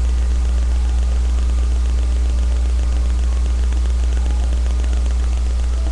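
Steady low hum with an even hiss underneath, unchanging throughout: background noise picked up by a webcam microphone.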